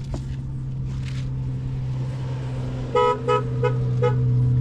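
A motor running with a steady hum that grows louder, then four short horn toots in quick succession about three seconds in.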